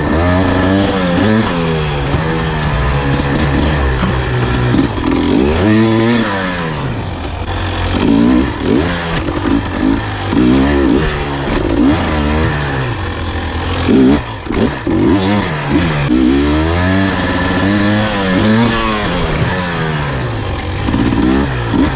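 Dirt bike engine being ridden, revving up and dropping back again and again with quick throttle blips.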